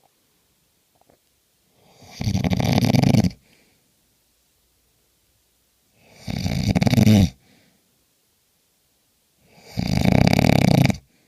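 Snoring: three long snores about four seconds apart, each lasting around a second and a half, with quiet breathing gaps between.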